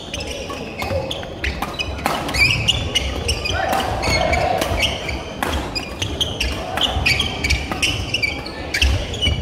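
Badminton doubles rally: a quick run of sharp racket strikes on the shuttlecock, mixed with short squeaks of court shoes on the wooden gym floor.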